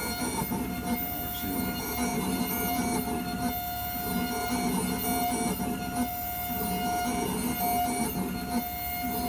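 Cerec MC X dental milling unit milling a new tooth from a block. Its spindles give a steady whine, and a rough grinding swells and fades every second or so as the burs work the block, under a hiss of coolant water spray.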